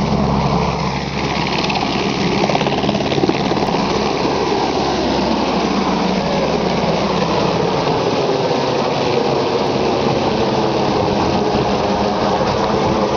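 Helicopter's engine and rotor running steadily, a loud, even drone and rush.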